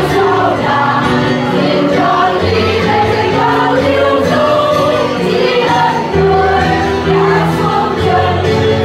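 Mixed choir of men and women singing in parts, with long held notes.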